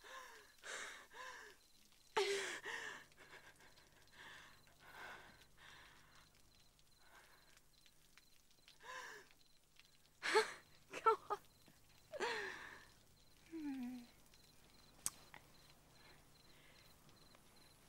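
Faint, breathless sobs and gasps from a person: a few short, wavering vocal cries separated by quiet pauses, with one sharp click near the end.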